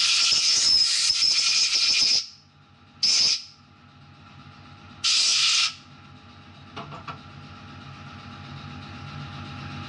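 Compressed-air blow gun blasting swarf off a small machined aluminium part. One long hiss of air ends about two seconds in, then two short bursts follow a couple of seconds apart.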